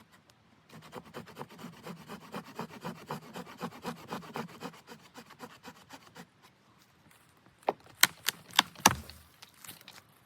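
Quick, repeated rubbing or scraping strokes for about five seconds, then a handful of sharp knocks in close succession.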